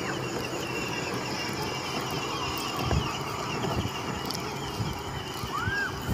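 Battery-powered ride-on toy quad's electric motor and gearbox whirring steadily as it drives across grass, with a thump about three seconds in.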